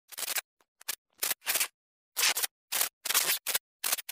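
A glitch-style intro sound effect: an irregular series of about ten short bursts of hissy static, cut off sharply each time with dead silence in between.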